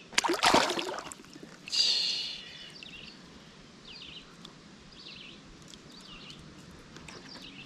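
Water splashing as a released smallmouth bass kicks out of the hand and swims off. About two seconds in a bird gives a short call, and faint bird chirps follow.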